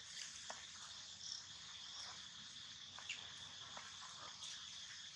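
Faint, steady, high-pitched chorus of insects, with a few faint short clicks scattered through it.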